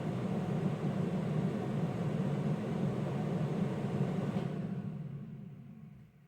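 Air blower running steadily, blowing down through a car's HVAC vent to dislodge a mouse nest, then spinning down and fading out about five seconds in.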